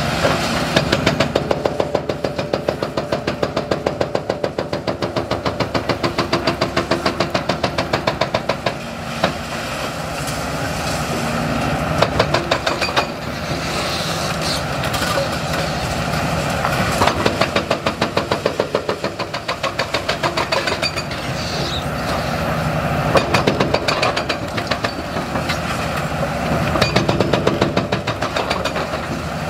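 Hydraulic breaker hammer on a Hitachi ZX350-7 excavator pounding a concrete bridge deck. It strikes in long runs of rapid, evenly spaced blows, several a second, with the excavator's diesel engine and hydraulics running steadily in the pauses. Now and then there is a single heavier knock.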